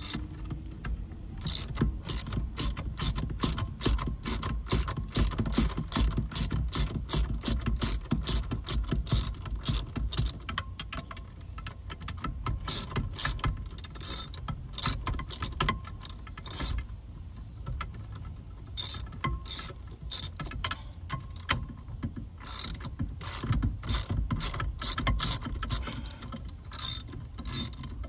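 Ratchet wrench clicking in quick runs as hex bolts holding a steering wheel are backed out, with a short pause about two-thirds of the way through.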